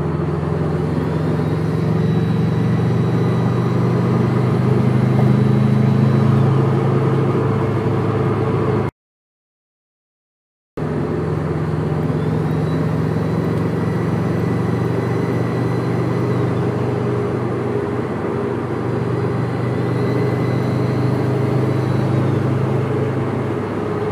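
Subaru WRX with a stage 1 tune and cat-back exhaust running, its turbo giving a faint high-pitched whistle over the engine hum; the whistle rises, holds and falls away three times. The owner is unsure whether this whistle is normal: it started suddenly, and the turbo has until now sounded much deeper.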